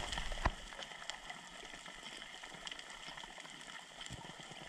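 Faint water ambience, a hiss with scattered crackling clicks and some bubbling. A sharper click comes about half a second in, after which the sound settles quieter.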